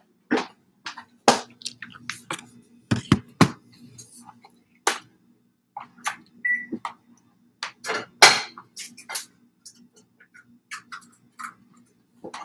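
Stiletto heels clicking irregularly on a ceramic tile floor as a woman walks about, each step a sharp click.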